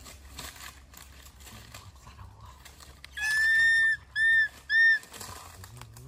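A high whistled call: one steady note held for nearly a second, then two short notes at the same pitch in quick succession.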